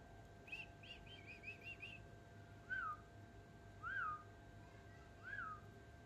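Pet parakeets calling: a quick run of about six small, high chirps, then three louder whistled notes, each rising and falling, spaced about a second apart.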